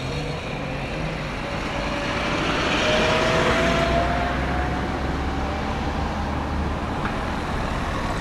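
Road traffic: a motor vehicle passing close by, its tyre and engine noise swelling to a peak about three seconds in and then easing off, with a rising whine and a low rumble as it goes.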